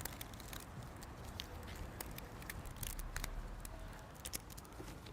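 Rubber bands being stretched and snapped onto watermelons one after another: a faint, irregular run of sharp snaps and clicks.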